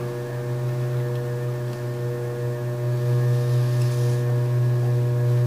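Electric potter's wheel running with a steady low motor hum while clay turns on it, growing a little louder about halfway through.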